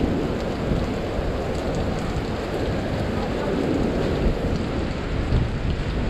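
Steady rain with wind buffeting the microphone: a dense, even noise, heaviest in the low range.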